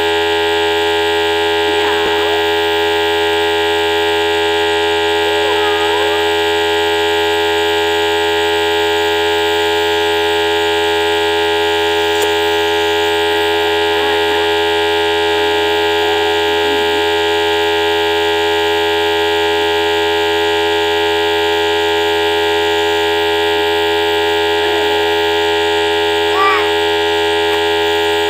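Compressor nebulizer running during an inhalation treatment, a loud, steady hum made of many fixed tones. A few faint, brief gliding sounds come and go over it, one a little louder near the end.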